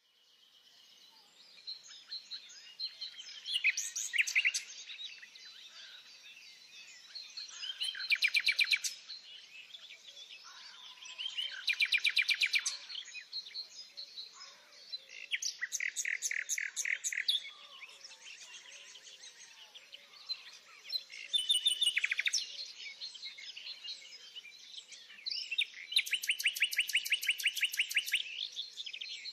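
Songbird singing loud, rapid trilled phrases about every four seconds, the last one longer, with other birds chirping softly and constantly behind.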